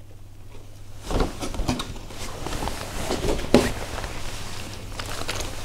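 Hard plastic RC crawler body shell being handled and set aside: irregular knocks, clicks and rustling, starting about a second in.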